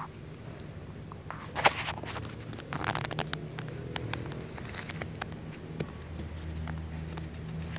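Rustling and soft pattering in grass, with scattered light clicks and two louder rustling bursts in the first three seconds. A low steady hum comes in about six and a half seconds in.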